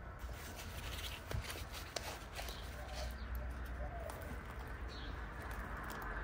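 Birds calling faintly in the garden, with a dove cooing briefly about halfway through, over a low steady rumble. Scattered small clicks and rustles come from hands working around plant pots.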